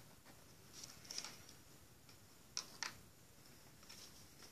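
Faint scratching of a pen drawing on paper, with a few light ticks, two of them sharp and close together about two and a half seconds in.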